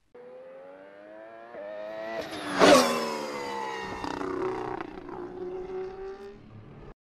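A race car's engine speeding past. The engine note climbs in pitch as it approaches, is loudest about two and a half seconds in, then drops in pitch as it pulls away. The sound cuts off abruptly just before the end.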